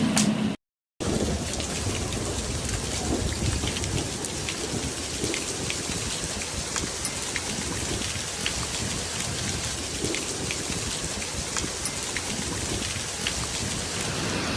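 Heavy rain pouring down in a steady hiss, with scattered drops ticking on hard surfaces.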